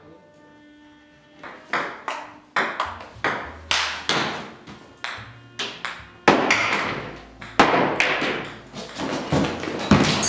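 Table tennis rally: the ball clicking back and forth off paddles and table in a quick, uneven run of sharp ticks, starting about a second and a half in.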